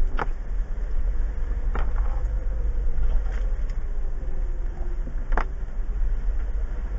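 A 2015 Jeep Wrangler Unlimited Rubicon's 3.6-litre V6 running at a slow off-road crawl, heard from inside the cabin as a steady low rumble. Three short sharp knocks come through, the first right at the start, one about two seconds in and one just past five seconds, as the Jeep bumps down a rutted dirt trail.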